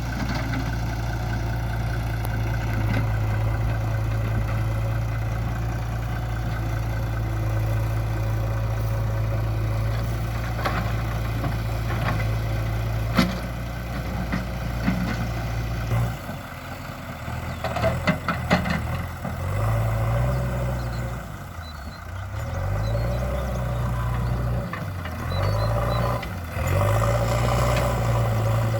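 JCB 3DX backhoe loader's diesel engine running steadily, then revving up and down again and again about halfway through as the hydraulics take load, with a few metallic clanks.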